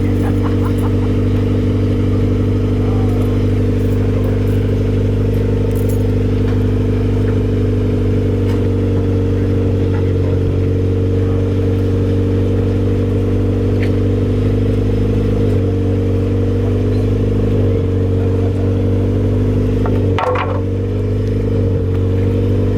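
Car engine idling steadily through its exhaust, the pitch dipping and shifting slightly a couple of times, with a short sharp knock about twenty seconds in.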